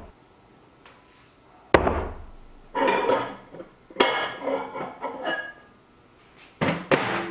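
Hard knocks and clinking of tools and containers being handled and set down on a workbench: two sharp knocks, about 1.7 s and 4 s in, with rattling and clinks between them and again near the end.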